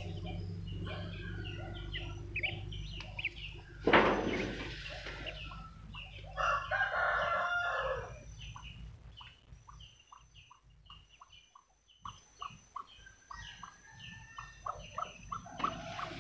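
A rooster crows once, about six seconds in, over scattered clucking of chickens and small peeps of newly hatched ducklings. A short, loud noise comes about four seconds in.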